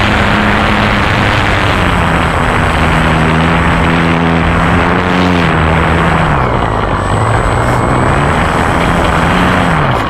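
Radio-controlled model airplane's motor and propeller droning steadily under heavy wind rush on the onboard microphone. The pitch drops about six seconds in, climbs again near the end and falls away at the very end.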